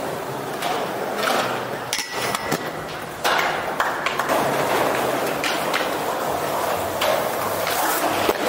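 Inline skate wheels rolling on concrete, with a sharp metallic ping about two seconds in as a skate strikes a curved metal hoop rail, ringing briefly. The rolling grows louder from about three seconds in.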